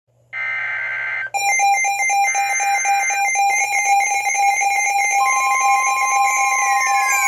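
Midland NOAA weather radios going off for a severe thunderstorm warning. A buzzing burst of SAME data tones comes first and repeats about two seconds later. Rapid steady alert beeping starts a little over a second in, a steady 1050 Hz warning tone joins about five seconds in, and several falling, siren-like tones start sweeping down near the end.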